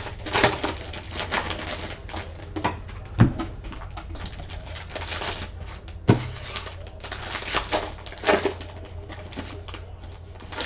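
Foil trading-card packs crinkling and tearing open while cards are handled, with scattered clicks and a few sharper knocks of cards or packs against the desk.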